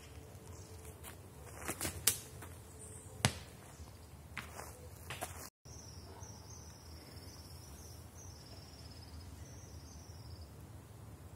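A few sharp clacks and crunches of stone on a dry gravel riverbed, the loudest about two seconds in. After a brief cut, a high chirping call repeats several times.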